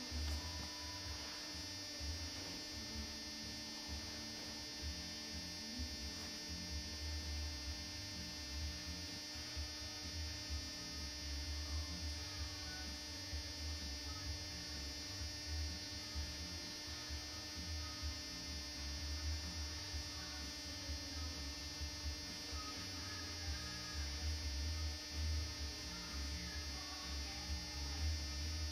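Steady low electrical hum with a faint high whine above it.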